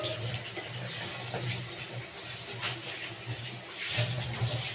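Food frying in an oily sauce in a pan: a steady sizzle with a few sharp pops, over a low hum.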